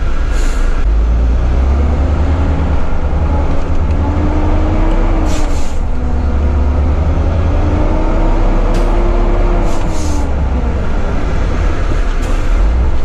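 Heavy truck's diesel engine, a Volvo FH12 480, running under load as heard from inside the cab: a heavy low drone whose note rises and falls twice as the revs change. Several short hissing bursts cut in, about half a second in, around five seconds in, twice near ten seconds and once near the end.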